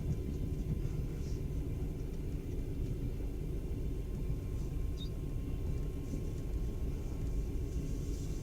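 Passenger train carriage running on the rails, heard from inside: a steady low rumble.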